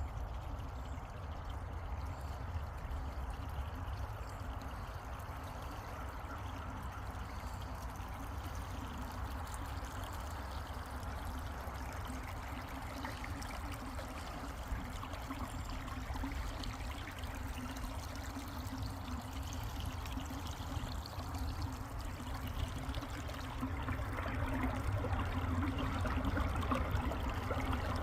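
Mountain creek water running in a steady, continuous rush, a little louder in the last few seconds.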